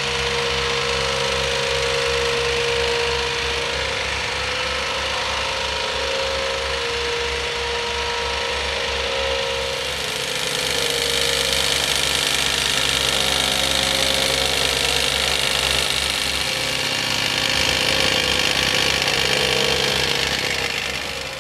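Heavy diesel construction machinery running steadily: a hydraulic excavator's engine with a rapid, even low pulsing. About halfway the sound turns louder and harsher.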